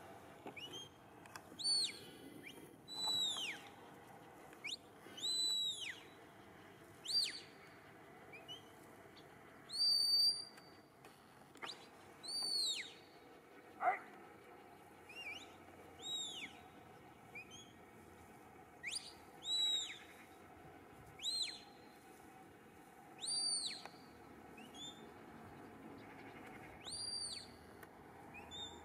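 A series of short, high whistled calls, each rising and falling in pitch, coming irregularly every second or two.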